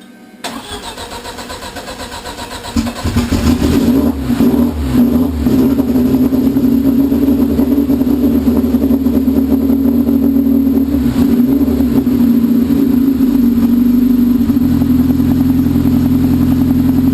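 Freshly rebuilt car engine cranked over by the starter, catching on the first try about three seconds in with some revving, then settling into a steady fast cold idle of around 1300–1400 rpm.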